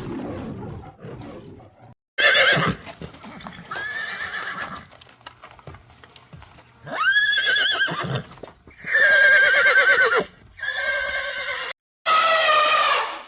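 Horses neighing: a string of about six loud whinnies, each a second or so long with a quavering pitch, following one another after a lower, rougher sound in the first two seconds.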